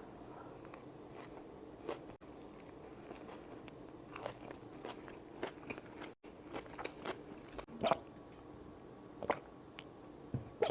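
Close-miked eating: crunchy bites and chewing, heard as irregular crackles and snaps, the loudest crunch about eight seconds in.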